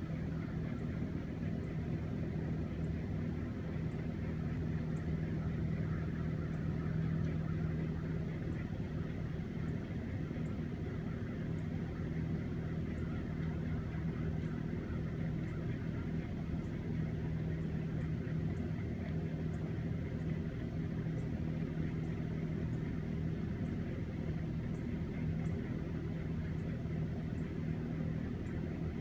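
Poultry house exhaust fans running steadily: an even rushing drone with a constant low hum.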